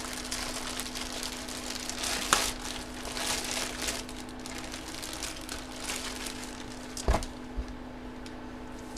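A bag being handled and pulled open, crinkling and rustling, busiest in the first few seconds, with a couple of light knocks, one near the middle and one near the end, over a faint steady hum.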